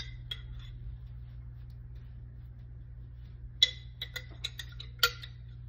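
A metal utensil clinks and taps against a dish: a few clinks near the start, then a quick run of about eight clinks from about three and a half seconds in. A steady low hum runs underneath.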